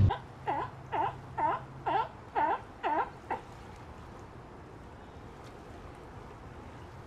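A sea lion calling six times in a quick series, about half a second apart. Each bark dips and rises in pitch. The barks stop a little over three seconds in.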